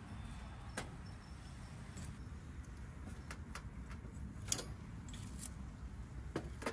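Scattered sharp clicks and light clinks, about nine in all, over a low steady rumble, from a wood fire in a metal fire grill being built and tended.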